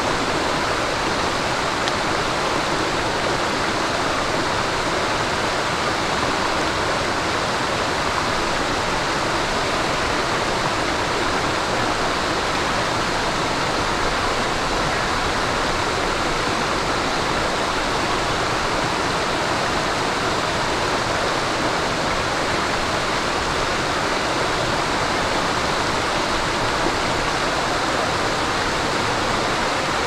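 Stream water babbling over rocks: a steady, even rush of flowing water with no breaks.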